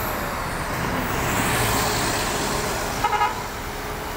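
A road vehicle passing close by, its engine and tyre noise swelling and fading, then a quick burst of short horn toots about three seconds in.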